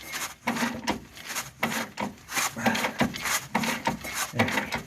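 Repeated rasping strokes, about three a second, of a hand tool worked back and forth against a stubborn fastener.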